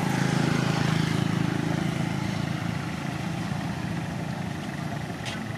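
A motor vehicle engine running with a low, steady hum that is loudest about a second in and slowly fades. A brief high click comes near the end.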